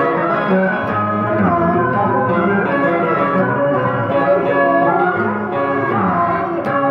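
A woman singing a Vietnamese song into a microphone, amplified over a backing track with plucked guitar.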